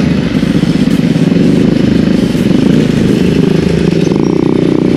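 Bajaj Pulsar NS200 motorcycle's single-cylinder engine running steadily at low speed, with a loud exhaust note.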